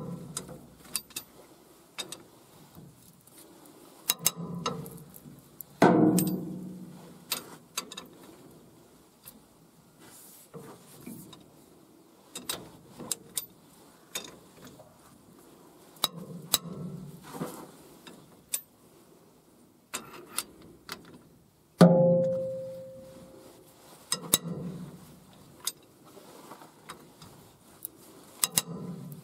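Socket wrench working the cylinder head bolts of a Nissan SD22 engine: scattered metal clicks and knocks, with two sharp clanks about six seconds in and near twenty-two seconds in, the second ringing briefly.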